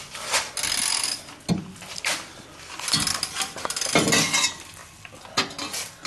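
Metal exhaust parts clanking and scraping in irregular rasps and knocks as a muffler's steel hanger pin is forced into its rubber hanger.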